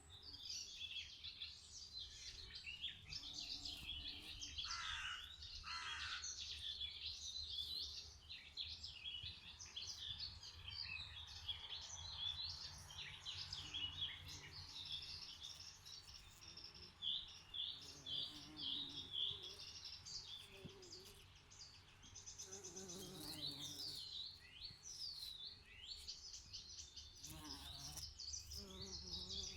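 Several songbirds chirping and singing together, a dense run of short high chirps and trills with a thinner spell about two-thirds through, over a steady low hum.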